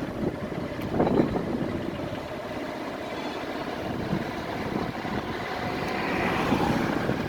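Road traffic: a vehicle running by, growing louder near the end.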